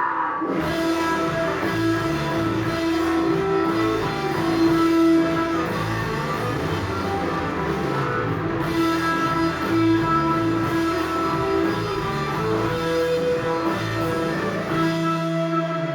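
Rock band playing an instrumental passage, led by guitars holding ringing notes over bass, with no singing.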